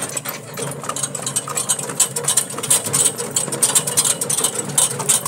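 Horse-drawn cart rattling and clattering as it rolls along a gravel road: a dense, fast, irregular rattle with a low rumble underneath.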